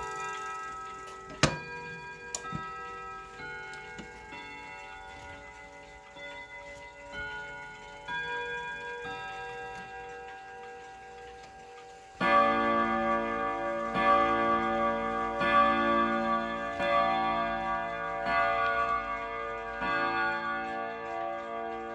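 A 1975 Jauch triple-chime wall clock's movement hammering its chime rods in a chime melody over the clock's ticking. The first half is sparse, ringing notes; about twelve seconds in, a louder, denser run of notes starts and keeps going.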